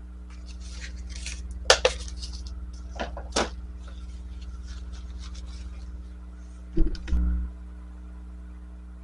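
Small objects being handled on a workbench: a few sharp clicks and rattles, then a low thump about seven seconds in, over a steady low hum.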